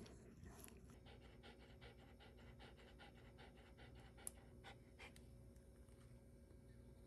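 Shiba Inu panting quickly and faintly, about five breaths a second, breaking off about two-thirds of the way in. A single sharp click comes just before the panting stops.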